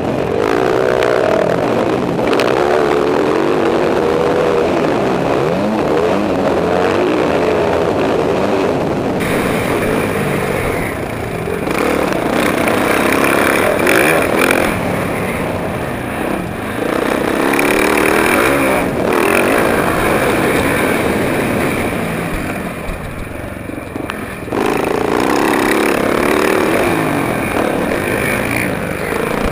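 Motocross bike engine revving hard and rising and falling in pitch as the rider works the throttle, heard from a helmet-mounted camera at race pace. The engine sound drops away briefly a few times when the throttle is let off, and the tone of the recording changes about a third of the way in as it switches to a second camera.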